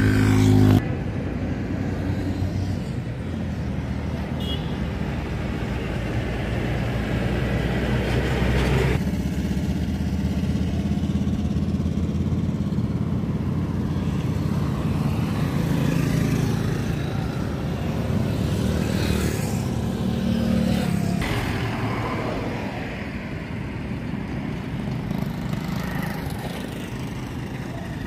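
TVS Apache RTR 160's single-cylinder engine idling steadily, a low, even pulsing note that shifts slightly a couple of times.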